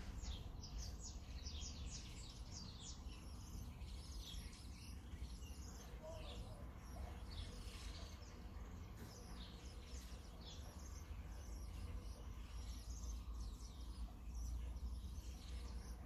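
Birds chirping and twittering, a stream of short high calls that runs on throughout, over a low steady rumble.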